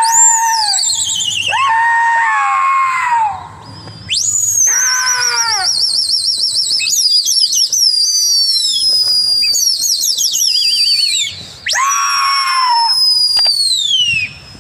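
Pigeon flyers' loud whistles, long warbling calls that slide downward in pitch, mixed with drawn-out shouted calls to a flock of pigeons circling overhead. The shouts come mostly in the first few seconds, then the whistles run almost without a break, with one more shout near the end.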